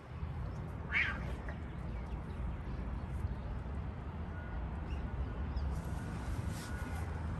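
A cat gives one short meow about a second in, over a steady low background rumble.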